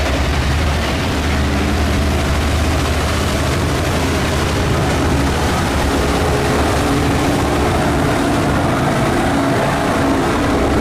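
Boat engines running steadily, a low drone with engine tones that waver slightly in pitch.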